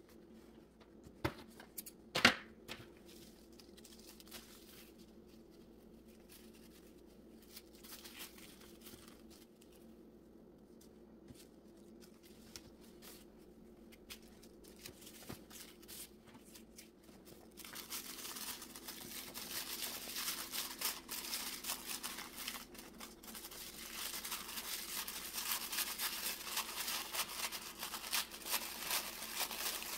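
Thin tissue paper rustling and crinkling as the layers of a folded tissue pom pom are pulled apart and fluffed by hand, going on steadily from about two thirds of the way through. Before that there are only faint handling rustles, with one sharp tap about two seconds in, the loudest sound.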